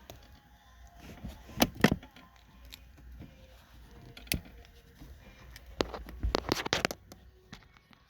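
Sharp clicks and light metallic rattles from handling wire, spade connectors and a crimping tool while a jumper wire for a relay is made up: a couple of clicks about two seconds in, one near the middle, and a rattling cluster near the end.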